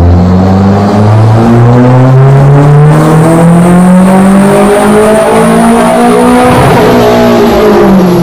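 Toyota MR2 SW20's turbocharged 3S-GTE four-cylinder, fitted with a BorgWarner EFR 6258 turbo, pulling hard on a chassis dyno. The engine note rises steadily in pitch for several seconds, a thin high whine sits above it, and the sound turns rougher around seven seconds in.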